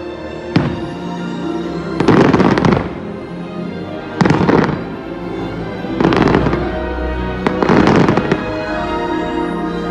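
Fireworks shells bursting with crackle: a sharp crack about half a second in, then four loud bursts roughly every two seconds, over the show's soundtrack music.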